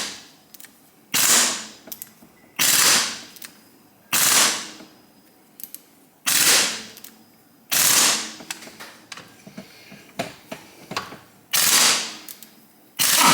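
Hammer blows on a metal tool set on a heated, seized fastener in the motorcycle engine case, about eight sharp ringing strikes roughly one every second and a half, with a longer pause with a few light clicks in the middle: trying to break the fastener free.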